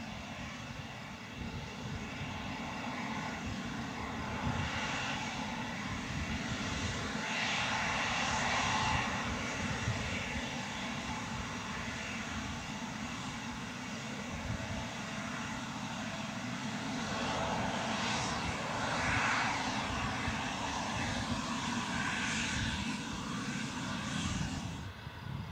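Bombardier CRJ regional jet's two rear-mounted turbofan engines running at low taxi power: a steady rumble and jet whine that swells in loudness a few times as the aircraft rolls past.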